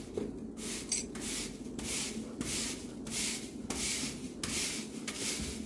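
Push broom sweeping straw across a concrete floor in steady strokes, about one and a half a second.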